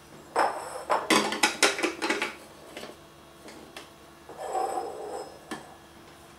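Stainless grating drum of an electric grater being handled, with a quick run of metal-and-plastic clinks and knocks. Then a scraping slide about four seconds in as the drum is pushed into the grater's plastic housing, ending in a click as it seats.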